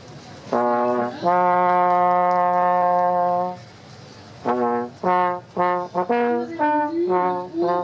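Solo trombone playing a slow, solemn call: a short note, then a long held note of about two seconds, a pause, then a run of shorter notes.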